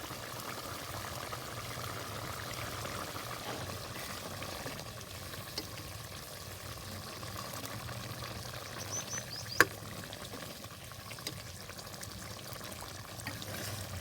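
Chicken curry cooking in a pot, a steady bubbling and sizzling of liquid with a low hum under it. A few faint ticks, and one sharp click about ten seconds in, the loudest sound.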